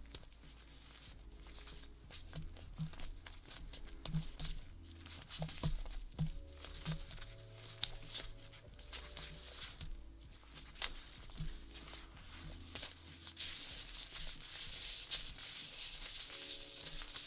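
Disposable plastic gloves crinkling and crackling as hands press, fold and roll bread dough on a wooden board, over soft background music.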